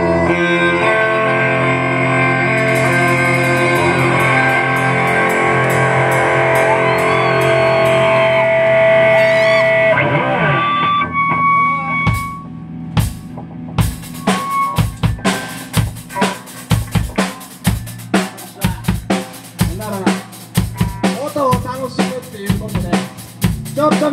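Live rock band playing loud: distorted electric guitar chords held and ringing for the first ten seconds or so, then a short break with a few scattered hits, and from about fourteen seconds in the drums take up a fast beat with bass and guitar.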